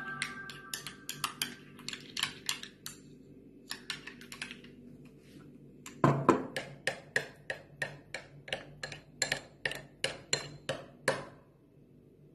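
Spoon clinking against a small glass bowl while stirring a thick white sauce, in quick repeated taps about three or four a second. The taps pause briefly past the middle, then come back louder.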